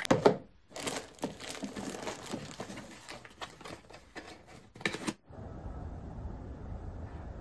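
Plastic film of a soft tissue pack crinkling and a paper tissue-box cover being handled, with rustles and light taps, loudest just after the start. About five seconds in this stops abruptly and a steady low background rumble takes over.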